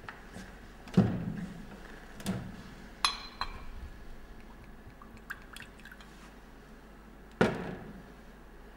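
A cut-glass crystal decanter and a tumbler handled to pour a drink of liquor. There are sharp glass knocks about a second in and again near the end, a ringing chink of glass on glass about three seconds in, and light ticks and drips between them.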